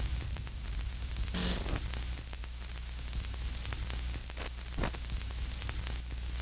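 Trailer-style sound design: a steady low rumble under crackles of static, with short glitch bursts about a second and a half in and again near five seconds in.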